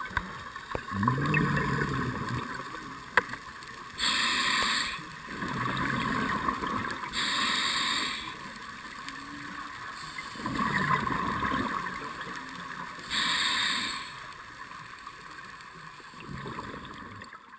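Scuba diver breathing underwater through a regulator: a hissing inhale every few seconds alternating with a longer gurgling rush of exhaled bubbles, about three breaths. The uploader hears the breathing as the diver shivering from the cold water.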